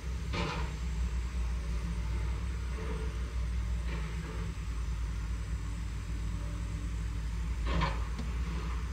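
An engine idling, a steady low hum, with three brief faint rustling noises.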